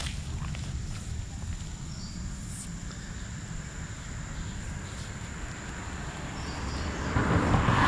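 Outdoor ambience: uneven low wind rumble on the microphone, a steady high-pitched drone and a couple of faint bird chirps. About seven seconds in, a louder rush of noise swells up.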